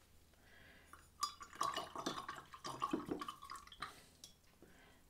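A paintbrush being rinsed in a glass of water: faint clinks of the brush against the glass and light sloshing of the rinse water, with one clink ringing on briefly about a second in.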